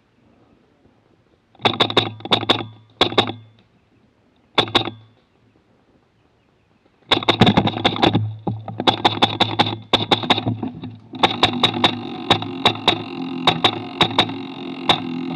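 Airsoft gun firing several short bursts of rapid shots, with a low hum under each burst. After a pause it fires long, near-continuous strings of shots, picked up close and echoing through the gun's rail-mounted camera.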